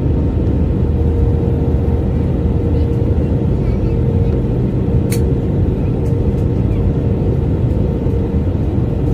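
Steady low rumble of a vehicle on the move, with a faint steady hum and a single sharp click about five seconds in.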